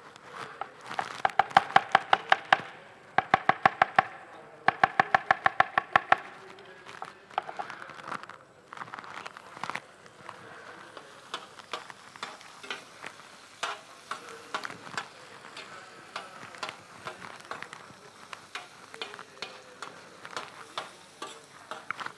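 A knife chopping fast on a cutting board in three quick runs of about six strokes a second. Then onion sizzles as it fries in oil in a paella pan, stirred with light scattered clicks of the utensil against the pan.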